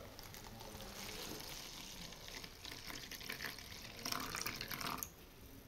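White spirit poured in a thin stream from a plastic bottle into a clear plastic tub of candle wax shavings: a faint, steady pouring sound, a little louder near the end and stopping about five seconds in.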